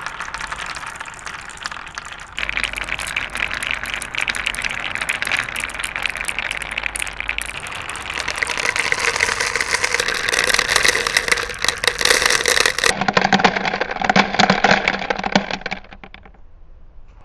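Marbles rolling and clattering along a marble run track, a dense stream of small clicks and rattles. The sound changes abruptly a few times and drops much quieter near the end.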